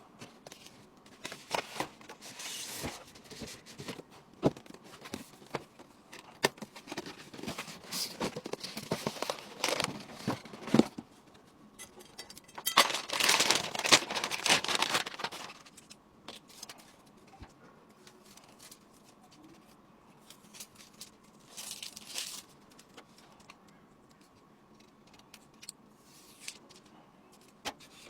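Hands handling plastic film and packaging during a PC build: crinkling, peeling and tearing with scattered small clicks and knocks, and a longer, louder tearing rustle about halfway through.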